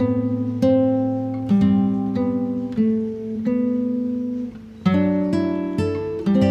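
Background music: acoustic guitar playing plucked chords, each struck note ringing and fading before the next, with a brief lull just before a new chord about five seconds in.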